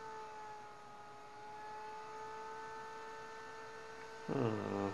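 Steady electrical whine with several overtones from the powered, just-repaired car battery charger circuit as its output is turned up. The pitch dips slightly about half a second in and comes back.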